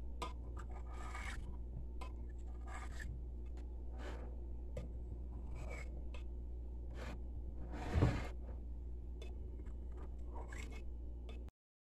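Knife blade cutting through set gelatin in a glass baking dish, scraping along the glass bottom in short strokes, over a steady low hum. A louder knock about eight seconds in; the sound cuts off abruptly just before the end.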